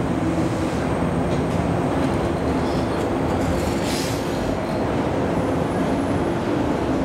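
JR West 113 series electric train rolling past slowly as it pulls into a station: a steady rumble of wheels and running gear with a low hum underneath.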